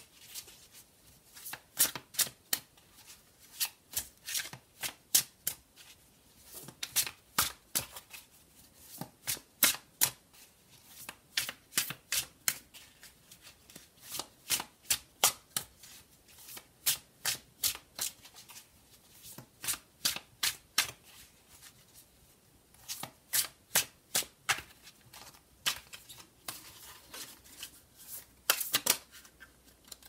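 A deck of tarot cards shuffled by hand, overhand: small packets of cards slapped from one hand into the other as runs of sharp taps, a few a second, with short pauses between runs.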